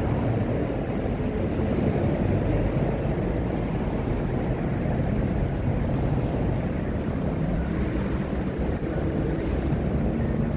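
Steady low rumble of traffic on a busy city street.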